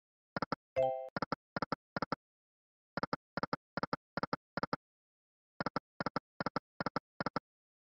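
Video slot game sound effects: runs of about five short double clicks, one for each reel landing in turn, repeated over three spins with a short pause between them. A brief chime sounds about a second in.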